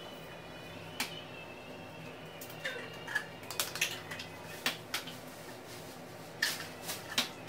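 Scattered light clicks and knocks of mixing bowls and a mixer being handled on a table, over a faint steady background hum.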